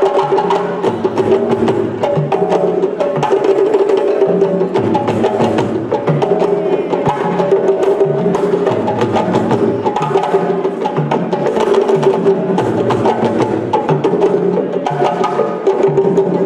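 West African drum ensemble playing a fast, dense rhythm: rapid sharp hand strikes over a repeating pattern of lower bass-drum notes.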